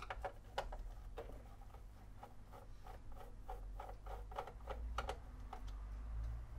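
Hand screwdriver undoing small screws on a record player's metal chassis: a run of light, uneven clicks and ticks.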